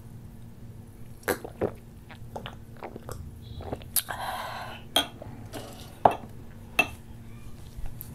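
A man sipping cola from a glass: a short sip and swallow about four seconds in, among sharp clicks and taps of the glass, the loudest as it is set down on the table about six to seven seconds in.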